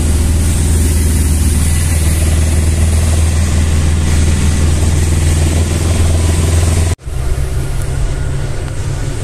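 Auto-rickshaw engine running steadily, heard from inside the cabin while it drives. About seven seconds in, the sound cuts to the lower, steadier engine hum inside a moving bus.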